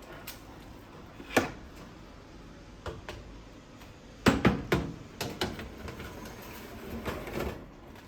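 Kitchen handling sounds: a series of sharp knocks and clatters, loudest in a quick cluster about halfway through, followed by a short scrape near the end.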